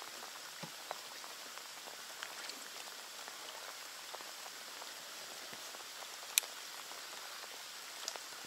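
Steady rain falling on the lake water, a fine hiss with scattered drops ticking close by, and one sharp click about six seconds in.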